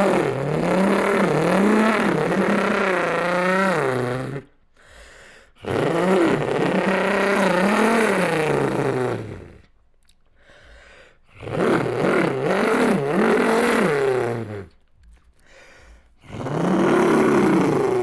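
A man's voice imitating a race car: four long growly, buzzing notes with rolled R's. Each note's pitch rises and falls like an engine revving through gears, then drops away at the end, with a short breath between passes.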